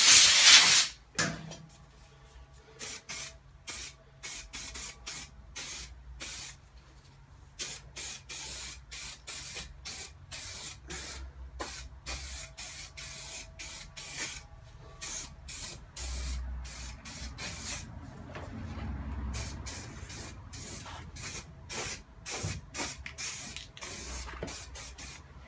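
Spray primer hissing out of the nozzle in many short separate spurts, after a longer continuous blast of about a second at the start.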